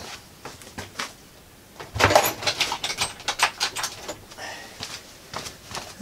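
Handling noise of small tools: scattered sharp clicks, then a busy run of clicks and light metal clinks about two seconds in, as a drill and its bits are picked up and sorted.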